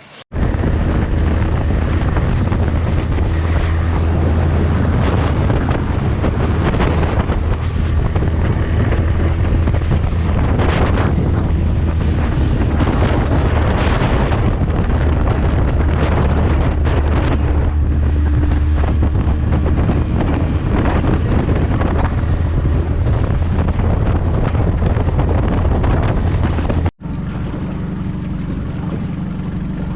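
A motorboat's engine running under way, with heavy wind buffeting the microphone. About three seconds before the end it cuts to a quieter, steadier engine hum.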